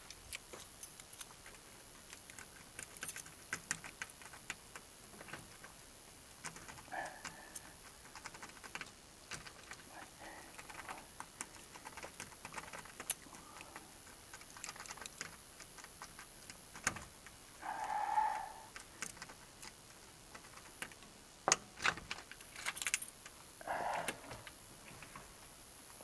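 Scattered clicks, rattles and rustles of gear being handled and rummaged through by hand in a search for a lost item, with a few short louder blips near the middle and toward the end.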